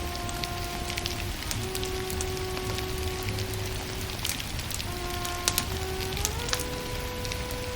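Firewood burning, crackling with scattered sharp pops over a steady low rumble, under soft music of slow, held notes.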